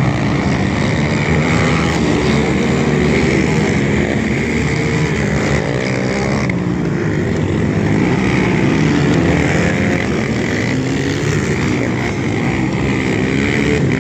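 Several racing quads' engines revving together, each pitch climbing and dropping as the riders accelerate down the straights and back off for the turns.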